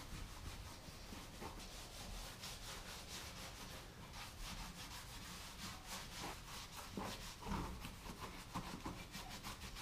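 Painted steel wheels being scuffed by hand with an abrasive, a faint quick back-and-forth scrubbing in repeated strokes, keying the old white paint so it can be painted over.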